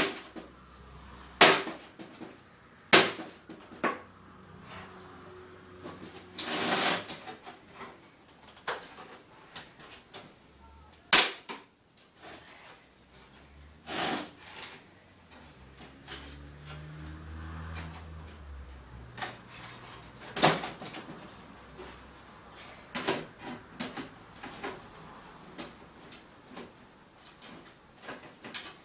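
Irregular sharp metal bangs and clatter as a desktop computer's steel tower case is struck and wrenched apart with hand tools. The strikes come a few seconds apart, the loudest a little after a second in, at about three seconds and about eleven seconds in.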